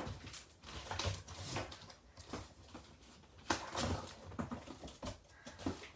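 Cardboard box flaps being pulled open and handled: irregular scrapes and rustles of cardboard, several louder ones about a second and a half in and around three and a half seconds.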